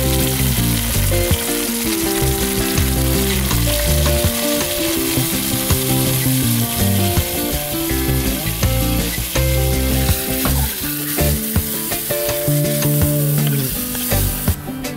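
Seasoned chicken sizzling and frying in a hot oiled pot over a wood fire, a steady hiss, with background music with a moving bass line playing under it.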